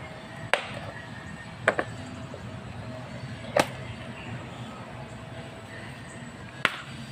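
Clear plastic tool case being unlatched and opened: four sharp plastic clicks, spaced one to three seconds apart, over a steady background hiss.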